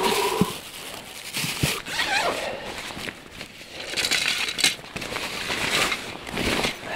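Irregular rustling, crinkling and small knocks of fishing gear being handled in a plastic tackle box, with plastic bag and clothing rustling.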